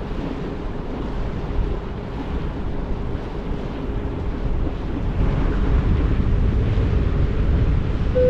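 Gothenburg route 285 river ferry under way: a steady low rumble of engine and water, with wind on the microphone, growing louder about five seconds in.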